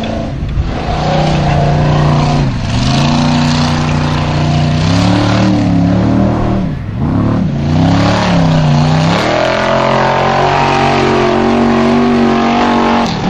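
Formula Offroad street-legal jeep's engine revving hard under full throttle. Its pitch climbs and drops repeatedly as the driver works the throttle, with a few sudden dips in revs.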